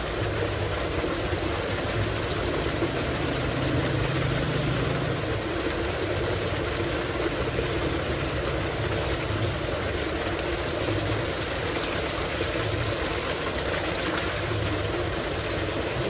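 Tubewell water gushing steadily from a large pipe into a concrete tank, over the steady low drone of the running pump.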